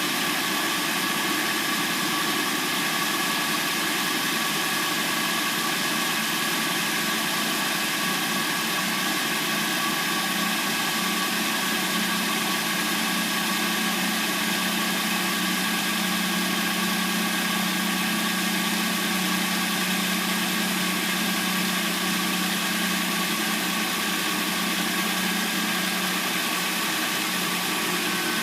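Hyundai Sonata's replacement engine idling steadily after a cold start, with an even pitch and no change in speed.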